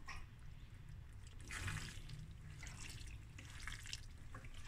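Wooden spoon stirring macaroni through thick tomato sauce in a stainless steel pot: soft, irregular wet squelches and scrapes, over a faint low hum.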